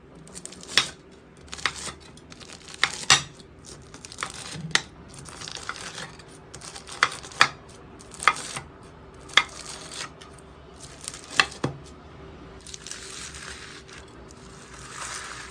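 Slime being handled, squeezed and stretched, with a sharp pop or click about every second between softer, noisier handling sounds.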